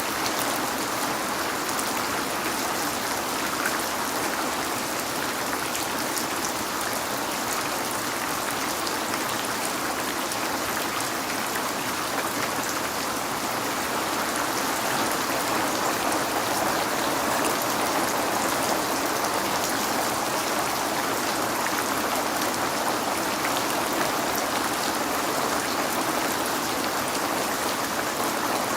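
Steady rain on a window: a continuous even hiss with a fine patter of drops.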